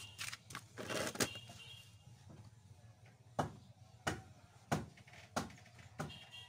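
Hand work on a Kymco scooter's CVT variator as it is being tightened during reassembly: a clatter of handling in the first second or so, then five sharp knocks about two-thirds of a second apart.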